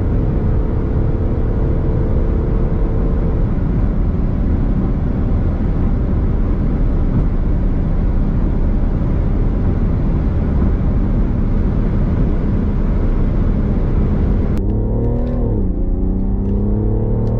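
Car accelerating at high speed, a dense steady rush of engine, wind and road noise. About fifteen seconds in it cuts to a car pulling hard from lower speed: engine pitch climbing, dipping at a quick upshift, then climbing again.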